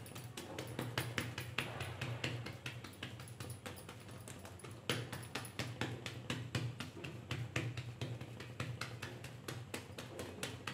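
Fingers patting soft rice-flour dough flat on an oiled plastic sheet: quick, soft, uneven pats, several a second.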